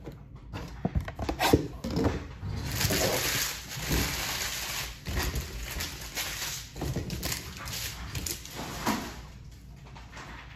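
Cardboard trading-card box and its plastic packaging being handled: crinkling and rustling with many small clicks and a few knocks, loudest in the middle few seconds.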